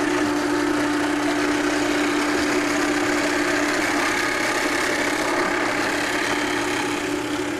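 A steady motor hum with one strong, unchanging tone over a steady hiss.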